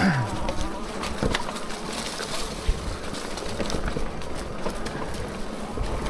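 Hitway BK10S folding e-bike ridden off-road: a steady buzzing hum with scattered knocks and rattles over rough ground.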